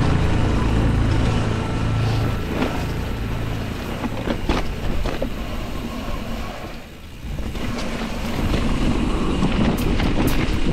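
Mountain bike riding down a dirt trail: a steady rushing noise with sharp knocks and rattles as it goes over bumps.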